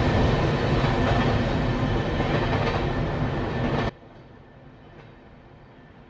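Freight train tank cars rolling past close by: a steady rumble and clatter of steel wheels on the rails. It cuts off abruptly about four seconds in, leaving only a faint hiss.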